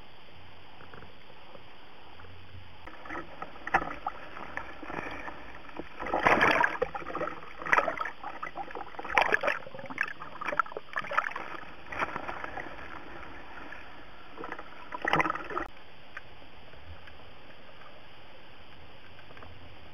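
Water splashing and sloshing around a camera in an underwater housing at the surface, in irregular bursts from about three seconds in until about fifteen seconds, over a steady hiss that stays alone once the camera is back under.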